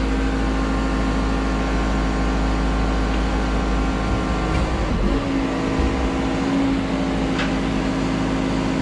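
Manitou MRT rotating telehandler's diesel engine running with its hydraulics under load as the stabiliser legs lower onto the ground and the machine levels itself on auto. A steady hum with a hydraulic whine whose pitch shifts slightly about five seconds in.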